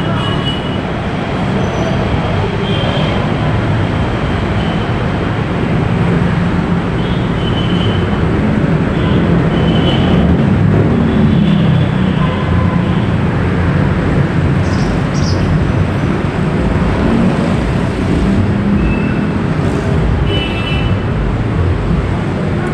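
Busy city street traffic: a steady, loud rumble of passing engines and tyres, with short high-pitched sounds here and there.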